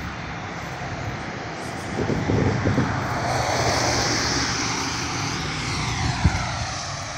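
A passing vehicle's rushing noise swells, peaks about halfway through, then fades with a falling pitch.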